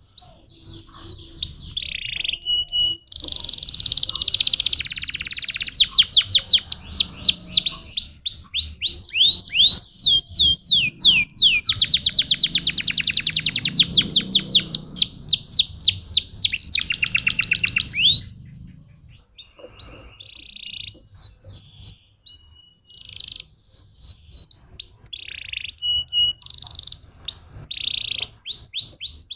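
Domestic canary singing: long rapid trills of fast, high, down-sweeping notes that are loudest and densest through the first two-thirds, then shorter, spaced-out phrases near the end.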